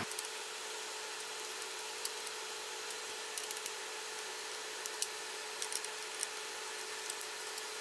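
Small screwdriver working the screws of a laptop's plastic hard-drive bay cover: a few faint, scattered ticks and scrapes over a steady hiss with a faint hum.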